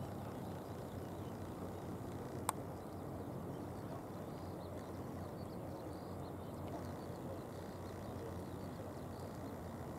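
Steady low outdoor background noise by the waterside, with a single sharp click about two and a half seconds in.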